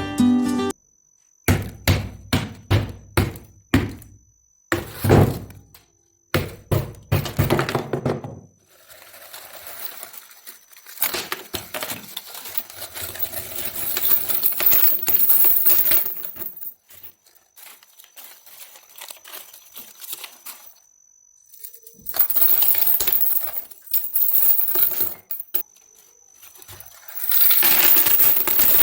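A cylinder-shaped money bank being struck again and again to break it open, a series of sharp knocks, followed by coins spilling out and rattling and clinking against each other and the pieces.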